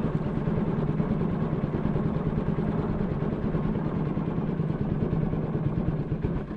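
Small wooden boat's engine running steadily, an even low pulsing drone as the boat moves along.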